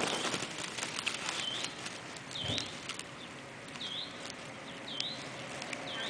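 A small animal's high, short call, each note dipping then rising in pitch, repeated about once a second. Rustling and a few sharp clicks in the first second, and a soft low thump about halfway through.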